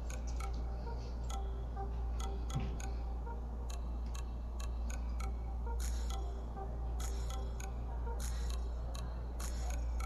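Scattered small clicks and taps from handling a phone and a network cable, irregularly spaced, with a few slightly longer taps in the second half, over a steady low hum.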